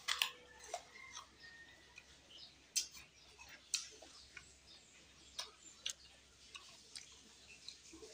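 Close-up eating sounds: a man biting and chewing food, with scattered sharp mouth clicks and lip smacks at an irregular pace.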